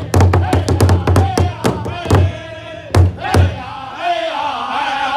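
Powwow drum group: several men striking one large hide drum together in a fast steady beat while singing a chant, then two single strikes about three seconds in, after which the voices carry on without the drum.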